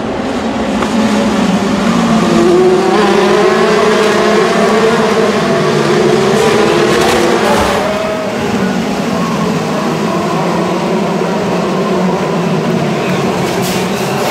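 Formula 3 race cars' engines running at high revs. The pitch climbs over the first few seconds and then settles lower.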